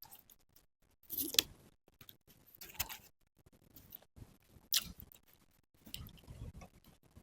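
Close-miked eating sounds: wet chewing and mouth noises with sharp crackling clicks, coming in irregular bursts every one to two seconds.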